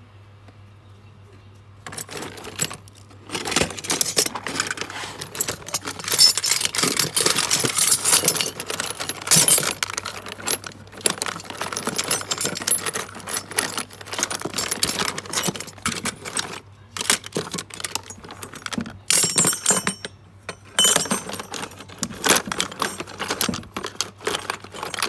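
Brass and chrome plumbing fittings clinking and rattling against each other in a plastic tub as a hand rummages through them, starting about two seconds in.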